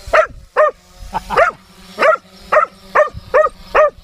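A dog barking over and over in short, high yaps, about two a second, with a faint steady hum underneath.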